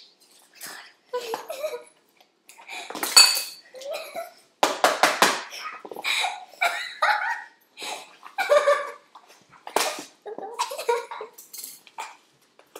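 A kitchen utensil clattering and scraping against a mixing bowl in an irregular run of knocks and clinks as ingredients are stirred together.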